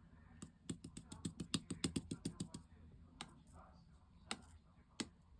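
Berry-yogurt liquid slime being worked by hand, giving a quick run of small wet clicks and pops, about five or six a second, then a few single pops.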